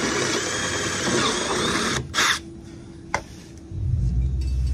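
Milwaukee cordless drill with a quarter-inch bit enlarging pilot holes in the van's underbody sheet metal. It runs for about two seconds, then one more short burst and a click. Near the end a low engine rumble comes in.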